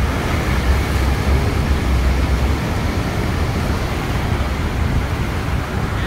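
Steady loud rushing of the Rhine Falls and the churning water at its foot, heard close up from a boat, with a deep rumble underneath.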